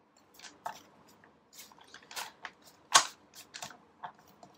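Cards being drawn from a deck and laid onto a board: a run of irregular light clicks and taps, with one sharper snap about three seconds in.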